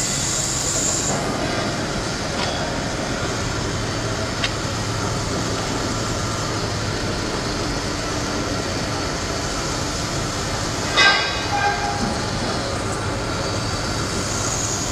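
CNC horizontal foam cutting machine running, its band knife and drive giving a steady mechanical drone with a low hum. A short rattling clatter cuts in about eleven seconds in.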